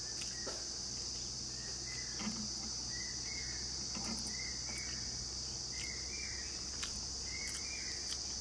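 Steady high-pitched drone of insects, with a short rising chirp about once a second. Faint clicks and soft smacks of eating rice by hand.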